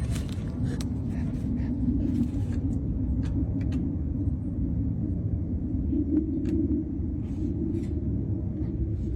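Steady low rumble with a few faint, light clicks scattered through it.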